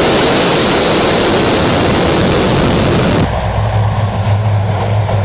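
Loud, even noise of a MiG-31's twin afterburning jet engines at full power on the takeoff run. About three seconds in it cuts abruptly to the steady low drone of an Il-38's four turboprop engines.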